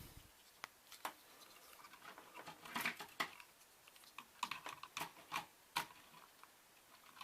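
Plastic K'NEX pieces clicking and rattling as they are handled and fitted at a loose joint. The clicks come irregularly and bunch together about three seconds in and again around five seconds.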